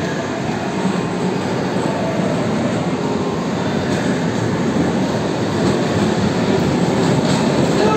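Electric bumper cars driving around an arena: a steady rumbling whir of motors and wheels rolling on the floor, with a faint wavering whine.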